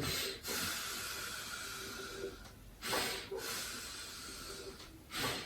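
A man breathing audibly through the mouth to act out asthmatic breathing: three short, sharp breaths in, each followed by a long, drawn-out breath out. It is the prolonged expiration heard in asthma.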